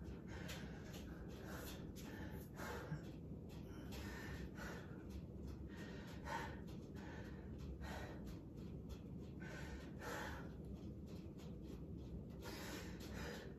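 A man breathing in and out through a held forward-fold stretch, faint breaths repeating every second or two.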